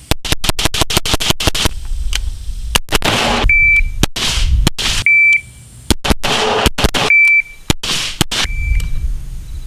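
Rapid strings of rifle shots with echoes. Four times, a short, high electronic beep from a shot timer starts a drill and a fresh string of shots follows; the last beep is fainter.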